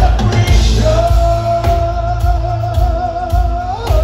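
Live heavy metal band playing loud: a singer holds one long note with a slight waver over guitars, bass and drums, the note bending up shortly before the end.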